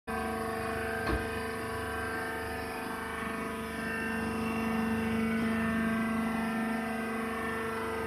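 Hydraulic baler press's motor and pump running with a steady hum, swelling slightly in the middle, with one sharp click about a second in.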